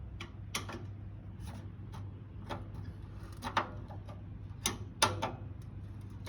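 Metal screwdriver tip clicking and scraping against a screw head and the steel case of a desktop computer's power supply, in irregular taps about one or two a second; the screwdriver is the wrong size for the screw. A steady low hum runs underneath.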